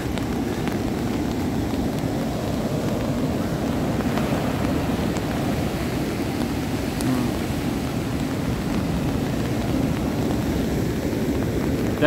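Rough-sea surf breaking on a sandy beach, heard as a steady low rushing noise.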